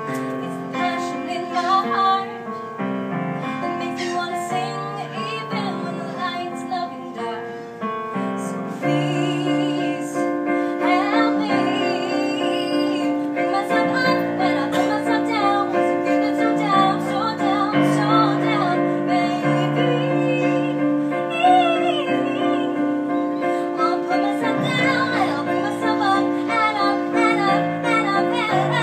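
A woman singing while accompanying herself on a Yamaha digital piano, sustained chords under her voice. The music gets louder about nine seconds in.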